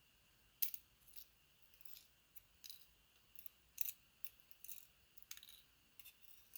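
Faint, irregular small metallic clicks and ticks as the driver pins of a Medeco Biaxial lock are worked out of their chambers one by one, the next of a mix of mushroom and standard drivers.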